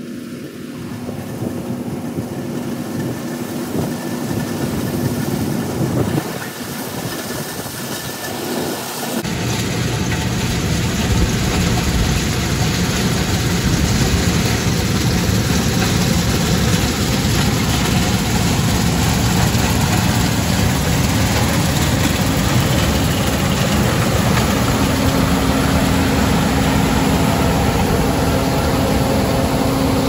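Combine harvester cutting soybeans, its engine and threshing machinery running steadily. About nine seconds in it turns suddenly much louder as the machine is close by, dust and chaff blowing out behind it.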